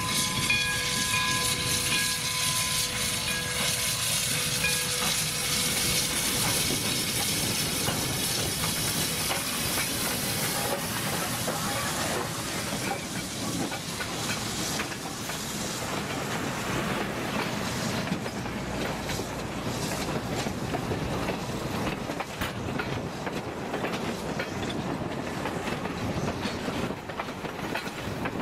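Santa Fe #3415, a Baldwin 4-6-2 Pacific steam locomotive, passing close by: its steam whistle holds a steady chord that fades out about five seconds in, with steam hissing. Then the train's cars roll past, wheels clicking over the rail joints.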